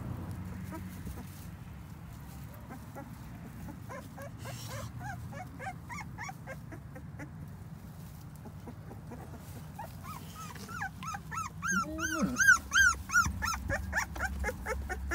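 Young puppies whimpering and squealing, in short high cries that each rise and fall in pitch. They are faint at first and grow louder and more frequent over the last few seconds.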